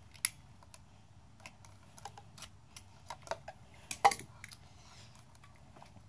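Scattered light clicks and taps from a utility knife and white nonmetallic cable being handled in a plastic electrical box. The loudest click comes about four seconds in.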